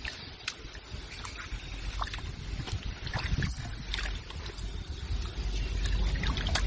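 Wind buffeting the microphone as a low rumble that grows louder toward the end, with scattered short, high chirps and clicks.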